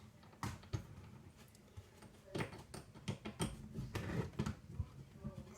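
Small hard parts and hand tools clicking and knocking irregularly while an RC car is worked on by hand, with a denser patch of clatter in the second half.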